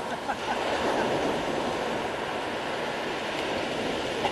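Sea waves breaking and surf washing up onto a pebble beach: a steady rush of water.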